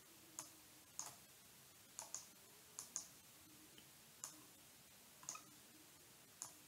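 Faint computer mouse clicks, about ten short sharp clicks at irregular intervals, some in quick pairs, against near silence.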